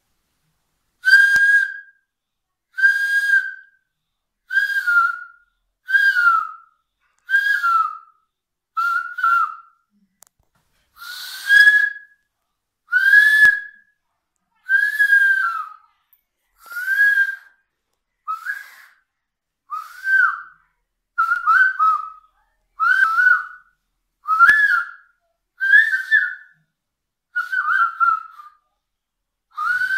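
A boy blowing into his cupped hands to imitate a conch shell, giving a series of about sixteen high, whistle-like blasts. Each note lasts under a second and comes roughly every one and a half to two seconds. Some notes bend in pitch, and the later ones are shorter and choppier.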